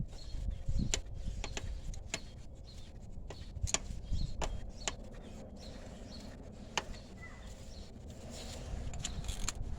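Scattered light clicks and taps of hand tools, such as a socket, extension and ratchet, working on the spark plugs in an engine bay, coming at irregular intervals over a low rumble.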